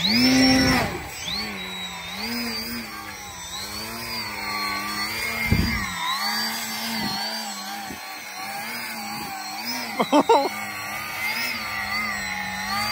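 Electric RC airplane motor and propeller whining, rising sharply in pitch at the start and then holding a steady pitch that wavers up and down with throttle changes. About ten seconds in there are a few brief, sharp, loud sounds.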